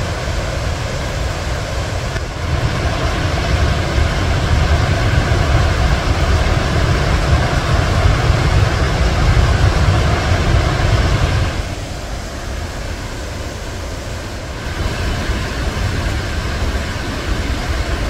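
Victoria Falls on the Zambezi: the steady rushing of a huge waterfall, a deep rumble under a hiss. It gets louder about two seconds in and drops back a little past halfway.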